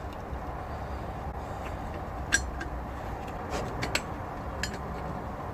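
A few scattered, sharp metal clicks of pliers on a valve stem seal and the cylinder head of a Rover V8, as the seal is gripped and wiggled side to side to work it off the valve guide; the loudest click comes about two and a half seconds in. A steady low hum runs underneath.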